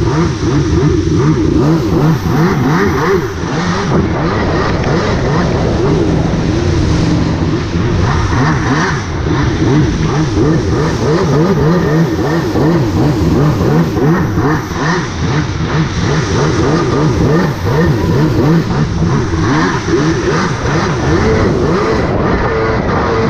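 Jet ski engine running under way, its pitch wavering rapidly up and down over a steady rushing noise.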